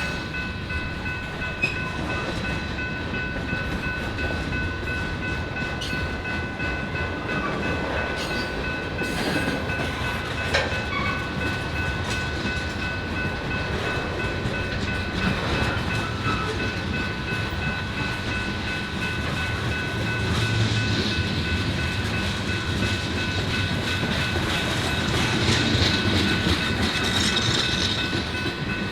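Freight train cars rolling past, their wheels rumbling and clacking over the rail, with a steady high-pitched ringing tone above the rumble that grows a little louder in the last third.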